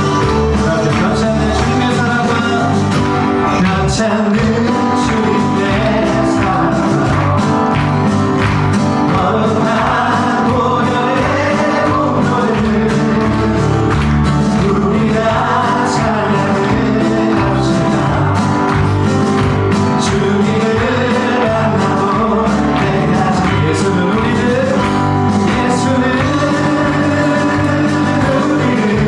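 Praise and worship music: a singer's voice carrying a melody over a band accompaniment, at a steady, full level.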